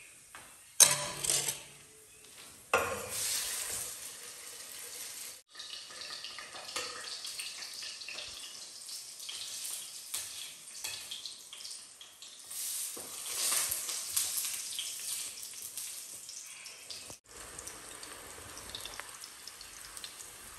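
Flatbread frying in hot oil in an iron karahi, a steady sizzle that sets in about three seconds in. It is preceded by a couple of sharp clinks of a metal spoon against the pan and plates.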